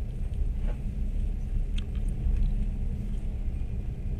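Passenger train running along the track: a steady low rumble of wheels and carriage.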